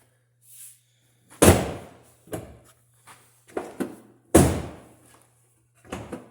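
1999 Chevrolet Silverado extended-cab third door being slammed shut twice, about three seconds apart, with smaller latch and handle clicks and knocks between: the door being opened and closed to test the newly replaced exterior handle.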